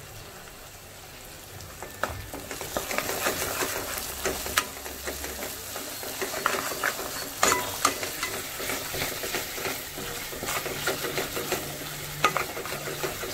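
Ground masala paste and curry leaves frying in ghee in a nonstick kadai, sizzling, while a silicone spatula stirs and scrapes through the paste. The sizzle grows louder a couple of seconds in, with short scrapes and clicks from the stirring.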